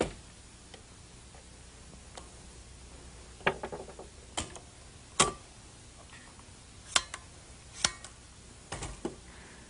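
Sharp clicks and knocks of a semi-automatic .223 rifle being taken apart and fitted with a new stock and bipod. About eight separate clicks come a second or so apart, with a short rattling cluster about three and a half seconds in.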